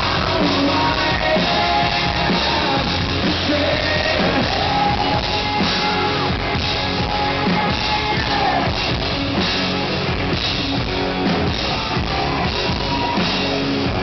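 Live rock band: a man singing lead over electric guitars, bass and drums.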